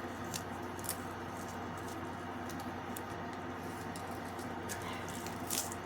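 A few faint rustles and light taps from hands handling sticky Velcro adhesive strips, over a steady low hum.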